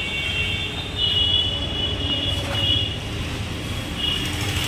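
Street traffic: a steady low rumble of passing vehicles, with a high thin tone sounding on and off over it.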